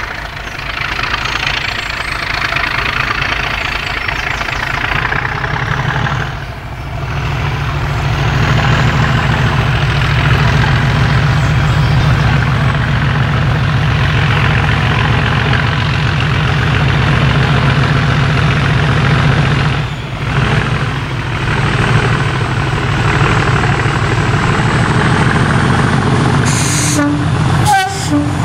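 Class 37 diesel-electric locomotive's English Electric V12 diesel engine working under power as it approaches hauling a train of coaches. The engine runs loud and steady with a deep drone.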